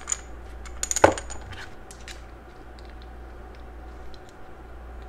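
Small metallic clicks and clinks from an aluminum mechanical vape mod's parts being handled and threaded onto a test connector. A sharper knock comes about a second in, then a few faint ticks.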